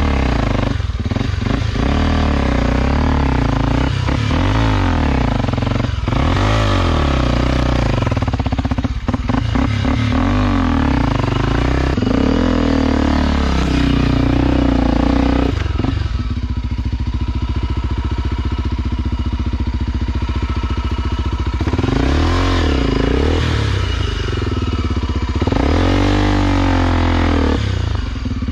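Honda XR Tornado's single-cylinder four-stroke engine revving up and dropping back again and again under load as the bike claws up a steep rocky rut. It runs more steadily for a stretch past the middle before the revs rise and fall twice more near the end.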